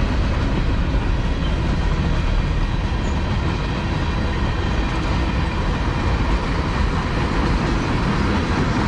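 Freight cars rolling past close by: tank cars and flatcars on steel wheels making a steady, loud noise on the rails, with no break or change.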